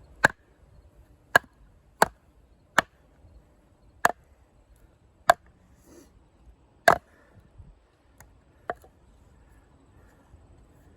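Batoning: a baton strikes the spine of a Condor Heavy Duty Kukri about seven times, a second or so apart, driving the thick high-carbon steel blade into a big log to split it. Two lighter knocks come near the end.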